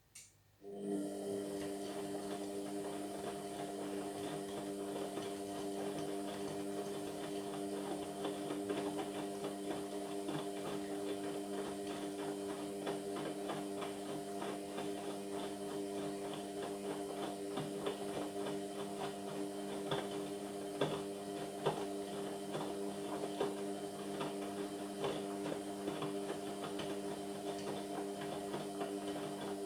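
Indesit MyTime washing machine running partway through a Cotton 60 cycle with a load of towels: a steady motor hum with light clicking over it. It starts abruptly about a second in and cuts off at the end.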